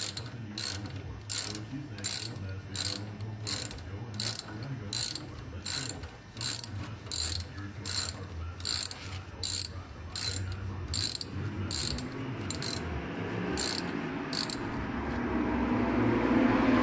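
Hand ratchet clicking about twice a second, backing out a front brake caliper bolt on a 2002 Ford Focus; the clicking stops about fourteen seconds in. A low rumble builds near the end.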